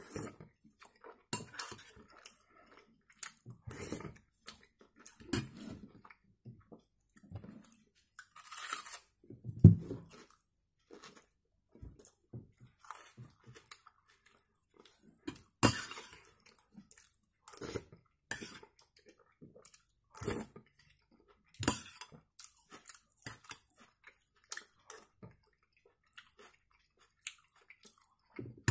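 Close-up chewing of a spoonful of pork kharcho soup with rice, in short irregular bursts, with a few sharp clicks of a metal spoon against the glass bowl.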